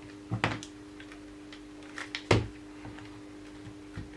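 Hard plastic knocks and clicks as a stiff battery pack is worked off a Ryobi 12-volt cordless drill: a pair of knocks about half a second in and a louder one just after two seconds.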